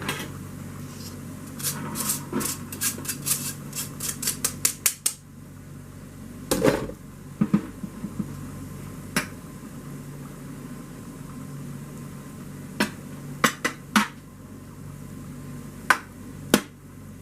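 A metal spoon tapping and knocking against a mesh strainer and pan as drained ground beef is knocked out into a baking pan. There is a quick run of taps in the first few seconds, then scattered single knocks.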